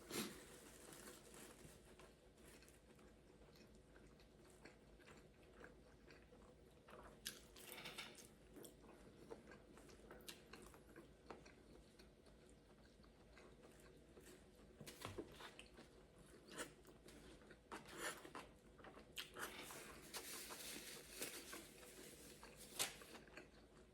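Person biting into and chewing a browned quesadilla: quiet mouth sounds with scattered crunchy bites, more frequent in the second half.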